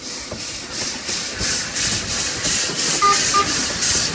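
Puffing Billy's NA-class narrow-gauge steam locomotive 6A working under load, its exhaust chuffing in a steady beat of about three a second and growing louder as it draws near.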